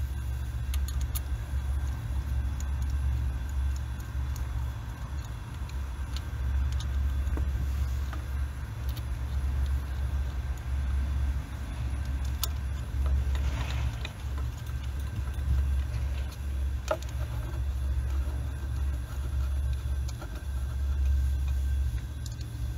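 A low, uneven rumble throughout, with a few light metallic clicks and a brief rustle of a spanner on the ignition coil pack bolts as they are tightened by hand.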